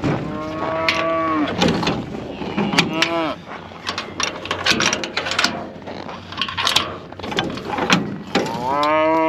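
Cattle bawling, three long moos, amid repeated metallic clanks and rattles from the stock trailer.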